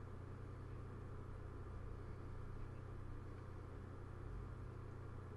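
Steady low hum with faint hiss: room tone, with no distinct event.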